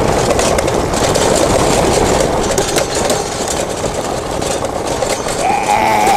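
Tyres of an electric hub-motor pedal quad crunching and sliding over loose gravel as it spins in tight turns, a steady gritty rush full of small clicks. A short rising tone comes in near the end.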